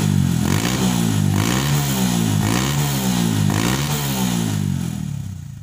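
Honda Mega Pro single-cylinder four-stroke motorcycle engine revved in short, repeated throttle blips through a gutted ('bobok') muffler, meant to give a soft, mellow ('empuk') exhaust note. The sound fades out near the end.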